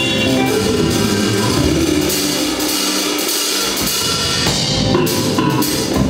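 A band playing: drum kit with cymbals, electric bass and electric guitar. The lowest notes thin out for about a second around the middle, then the full band comes back in.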